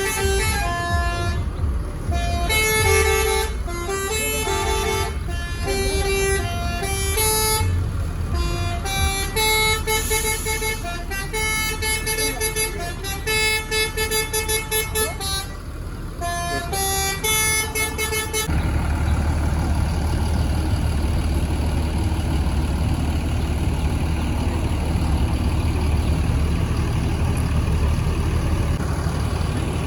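Bus telolet horn playing quick strings of melodic notes in short phrases with brief gaps. About eighteen seconds in, the horn stops and a steady low rumble takes over.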